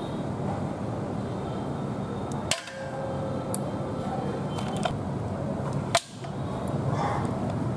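Two sharp clicks, about two and a half seconds and six seconds in, as land snail shells knock against hard bowls while the snails are picked out with a bamboo skewer, over a steady background noise.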